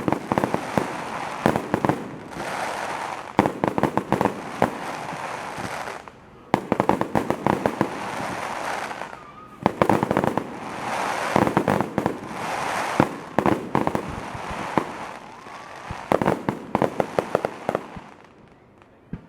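Starmine fireworks barrage: waves of rapid sharp bangs from bursting shells over a crackling hiss, with short lulls between volleys, dying away near the end.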